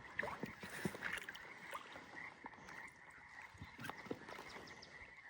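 Faint, scattered small splashes and drips of water as a freshly landed brown trout is handled in the creek, over a faint steady high-pitched tone.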